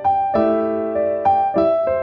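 Background piano music: a slow, gentle melody of struck notes and chords, each new note every half second or so.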